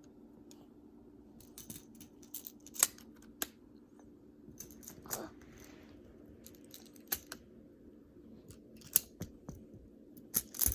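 Magnetic building tiles clicking and clacking together as they are handled and snapped into place: irregular sharp clicks, several close together at times, over a faint steady hum.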